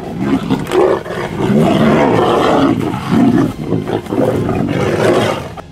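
Two tigers fighting, giving loud, almost unbroken roars that die down near the end.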